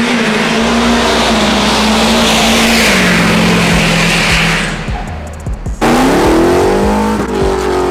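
A car engine held at high revs under a hiss like tyre squeal, the pitch dropping a step about three seconds in and the hiss dying away about five seconds in. Then the engine revs up and back down.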